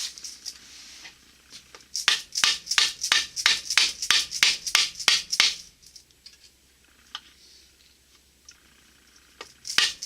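Quick series of sharp hammer blows, about three a second, knocking the rear bearing off a Borg-Warner T-10 four-speed transmission shaft instead of pressing it off. The blows stop for a few seconds, then start again near the end.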